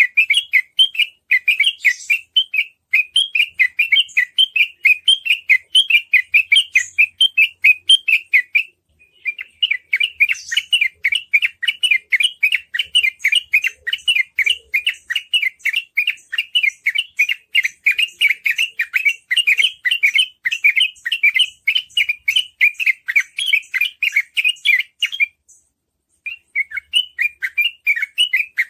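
Yellow-vented bulbul (trucukan) singing its rapid 'ropel' song: fast runs of short bubbling chirps, several a second, with short breaks about nine seconds in and near the end. It is a lure song played to get other trucukan to sing.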